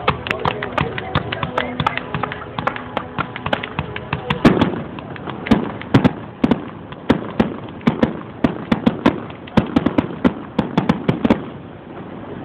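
Fireworks display: a rapid run of sharp cracks and pops, turning into heavier bangs with deep booms from about four seconds in, thinning out near the end.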